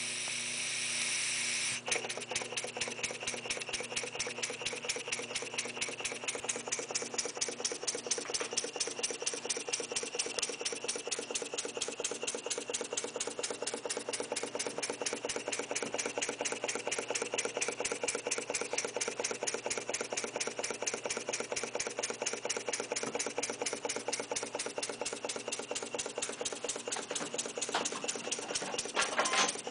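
Small brass double-acting oscillating model engine fed through a hose: a steady hiss for about two seconds, then it runs with a rapid, even train of exhaust puffs, with a short louder hiss near the end.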